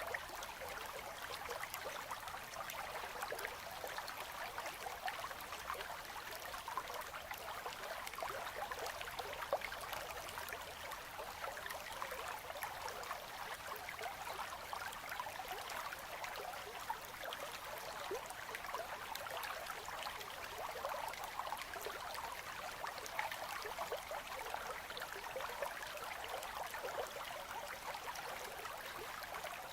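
Winter river current flowing among ice: a steady babble of water, full of small splashes and trickles.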